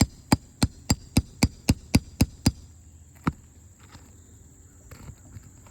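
Roofing hammer striking a nail puller to work a roofing nail out from under an asphalt shingle: a quick, even run of about ten sharp blows, then one more after a short pause.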